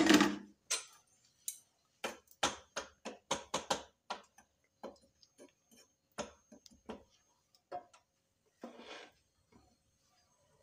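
Irregular clicks and knocks of kitchen utensils, several a second for a couple of seconds, then sparser.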